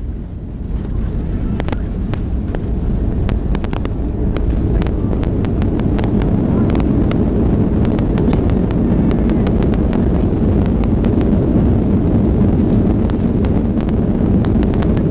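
Cabin noise of a Boeing 737-500 rolling out on the runway just after touchdown, ground spoilers up: a steady low roar of the engines and the wheels on the runway that builds about half a second in, with many small rattles and knocks from the cabin.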